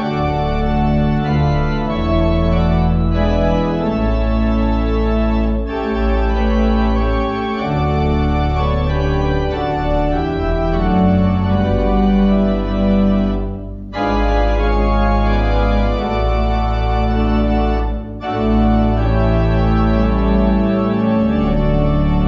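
Organ music: held chords over deep bass notes that change every couple of seconds, with brief breaks about 14 seconds in and again near 18 seconds.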